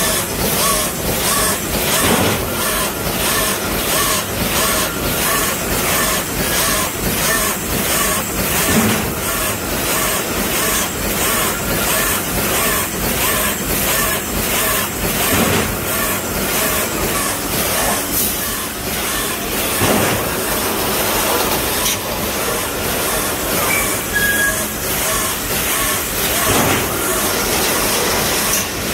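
2000-built EVG automatic wire-mesh welding line running, clattering in a steady rhythm of about two strokes a second over a constant hiss.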